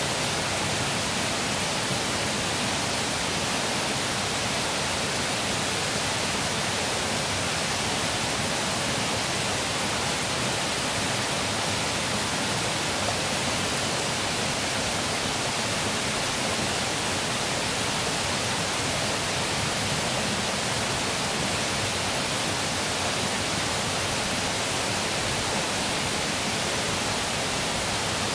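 Steady rushing of flowing river water, an even hiss at an unchanging level.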